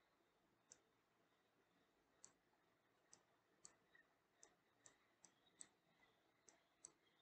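Faint, sharp computer mouse clicks, about ten at uneven intervals, while a web map is zoomed in.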